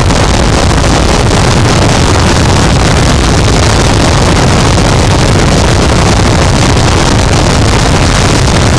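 Harsh noise wall: a loud, dense, unchanging wall of distorted static with a heavy low rumble, with no rhythm, pitch or change.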